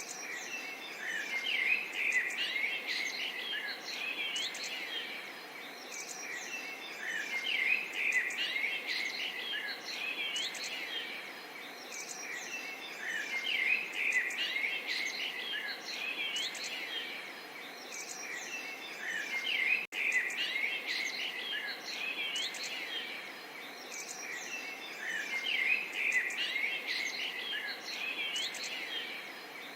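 A chorus of small songbirds chirping and trilling over a faint steady hiss, with a sudden split-second gap in the sound about two-thirds of the way through.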